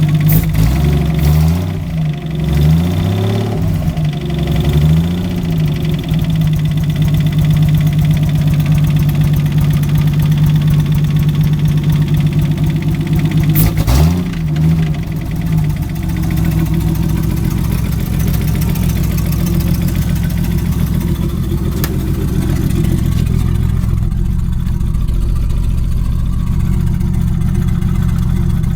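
Nissan RB25DET turbocharged straight-six running with a rod knock, the sign of a worn connecting-rod bearing. It is revved briefly about four times in the first six seconds and once more about 14 seconds in, then idles steadily.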